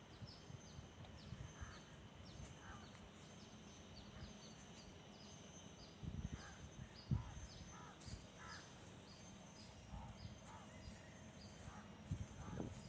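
Faint bird calls: a steady run of short, high falling chirps, a few a second, with occasional lower calls. A couple of soft thumps about six and seven seconds in are the loudest sounds.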